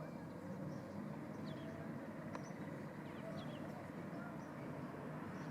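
Steady low background rumble with a few faint, short high-pitched chirps and a single soft click about halfway through.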